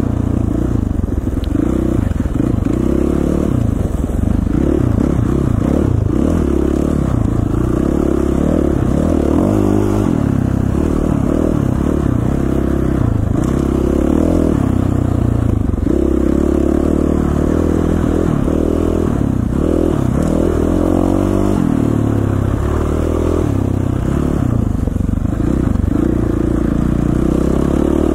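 KTM 450 XC-F dirt bike's single-cylinder four-stroke engine running while being ridden, its pitch rising and falling over and over as the throttle is worked.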